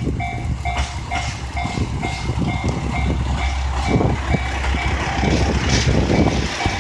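Railway level-crossing alarm ringing, a repeated electronic ding about two and a half times a second, while a train runs past over the crossing with a low rumble and wheel clatter.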